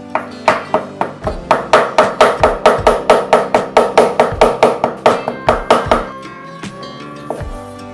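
Chef's knife chopping quickly through a strip of raw bacon onto a wooden cutting board: a fast, even run of knocks, about five a second, that stops about six seconds in. Background music plays throughout.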